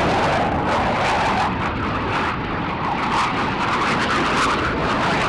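Two Blue Angels F/A-18 Hornet fighter jets flying past, their jet engines making a loud, steady rushing noise that eases slightly near the end.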